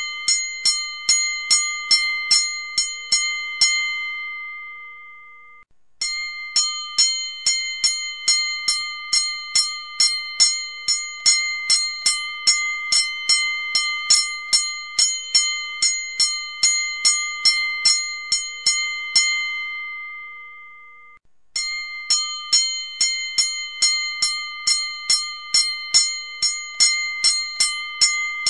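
Boxing ring bell struck rapidly, about three strikes a second, with each clang ringing into the next. The striking stops twice, about 4 and 19 seconds in, and the bell rings down for a second or two before the rapid strikes start again.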